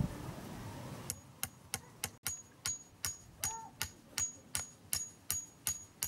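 Claw hammer driving nails into the wooden poles of a beehive frame: a steady run of blows, about three a second, each with a short high metallic ring. The blows start about a second in.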